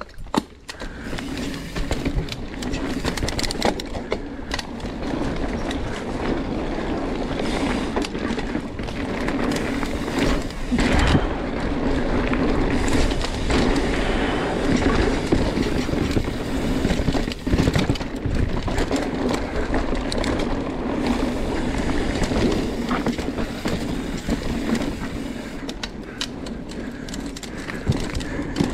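Mountain bike rolling fast down a dirt singletrack: steady tyre and riding noise, with frequent short rattles and knocks from the bike over bumps.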